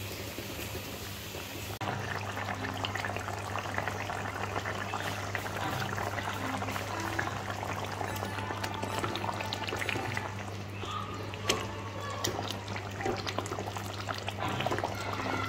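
Mustard-paste hilsa curry simmering in a wok, a dense crackle of small popping bubbles over a steady low hum.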